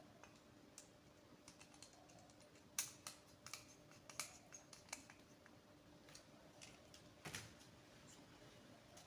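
Faint, irregular small clicks and taps of hands connecting a power cable to a push-button's terminals, with a sharper click about three seconds in and a duller knock about seven seconds in.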